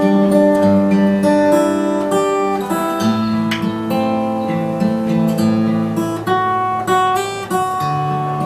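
Acoustic guitar strumming and picking chords as the instrumental introduction to a song; the chord changes about three seconds in and again near the end.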